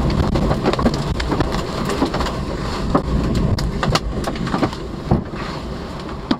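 Tornado wind and rain buffeting a vehicle, heard from inside the cabin: a heavy, steady rumble of wind with scattered sharp knocks of debris striking the body and glass, the strongest about three, four and five seconds in. The rumble eases slightly toward the end.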